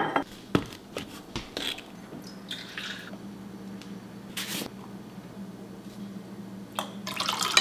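Hands making a drink at a kitchen counter: a string of knocks and clicks as a glass, bottle and supplement tubs are handled and set down, short stretches of scooping and pouring, and a metal spoon clinking against the glass near the end.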